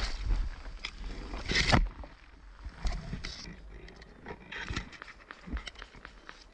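Close rustling and scraping of a moving player's clothing and gear on the body-worn microphone, loud for the first two seconds and fainter after, with scattered sharp clicks.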